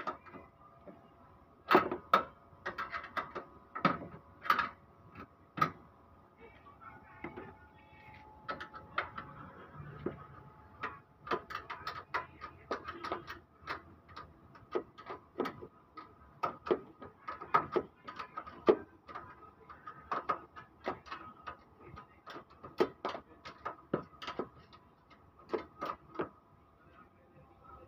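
Open-end wrench turning a bolt on a car's steel radiator support, giving irregular metal-on-metal clicks and clinks several times a second as the wrench is worked and repositioned on the bolt head.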